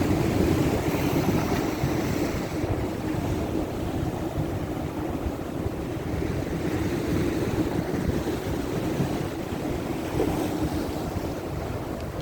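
Steady rushing and rumbling of wind buffeting the microphone, easing slightly near the end.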